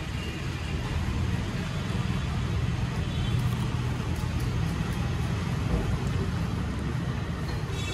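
Steady low rumble of road traffic passing on the street, with faint voices in the background.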